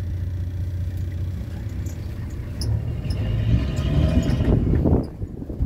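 Engine of an open safari vehicle running with a steady low hum, growing louder and rougher about three seconds in as the vehicle drives on, then dropping away sharply near the end.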